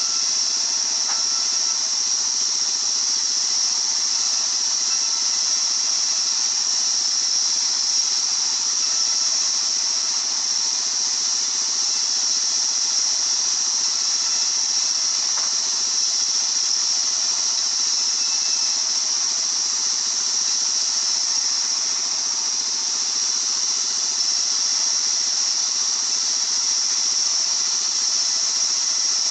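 Sawmill circular saw running steadily: a high hissing whine that holds the same pitch and loudness throughout.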